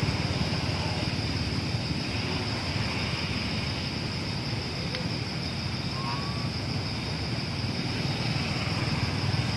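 Wind noise on the microphone over a steady high-pitched drone, with one brief faint chirp about six seconds in.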